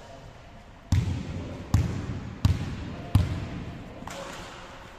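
A volleyball bounced four times on a wooden sports-hall floor, one bounce about every 0.7 s, as a server readies to serve.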